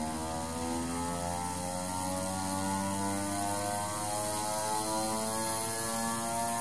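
Electrically driven gyroscope rotor running, a steady mechanical whir made of several pitched tones that creep slowly upward in pitch as the rotor keeps gaining speed after being switched on.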